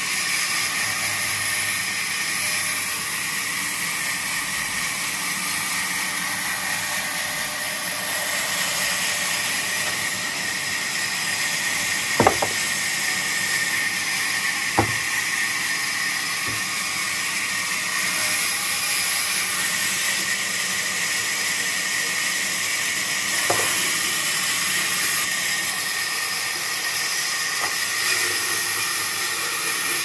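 Large electric vertical band saw (JAI J550E) running and cutting through log rounds: a steady hiss with a constant whine in it. A few sharp knocks stand out, about twelve and fifteen seconds in and again near twenty-four.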